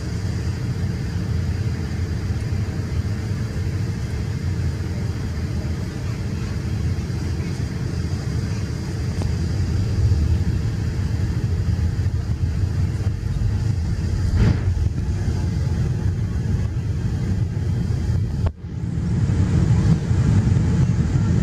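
Steady cabin rumble of a Boeing 787 Dreamliner in flight, engine and airflow noise heard from a seat over the wing. About three-quarters of the way through the sound drops out for a moment, then returns a little louder.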